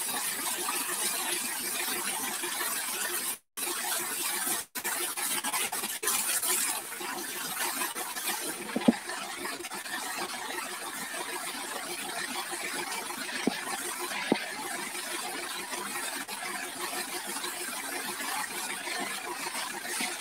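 Hose water jet hissing steadily as it sprays against a tractor's metal rotavator, cutting out briefly twice about three and a half and four and a half seconds in, with a few short clicks.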